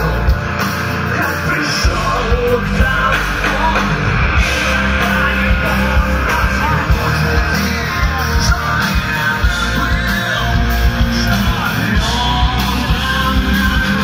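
Rock music with a singer, played loud, with a steady heavy beat and strong bass.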